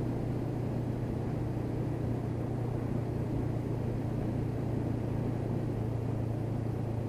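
Honda CB500X's parallel-twin engine running steadily at an even cruise, a constant low drone with road noise under it.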